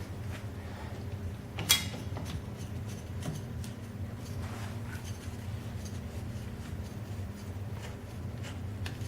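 Light handling noises from a pressure-mounted gate being adjusted: one sharp click a little under two seconds in, then a few faint taps and rubs, over a steady low hum.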